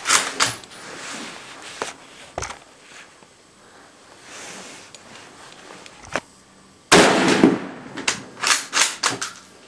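Gunshots from SKS semi-automatic rifles in 7.62×39mm, fired at irregular gaps. The loudest shot comes about 7 s in, and a quick string of four or five shots follows near the end.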